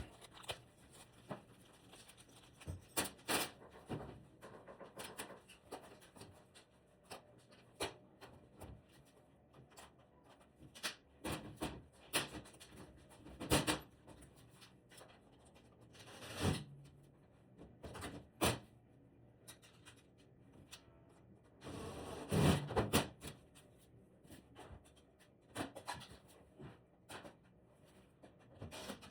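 Scattered knocks, clicks and rubbing of things being handled, irregular and a few seconds apart, with a louder cluster of knocks about two thirds of the way through.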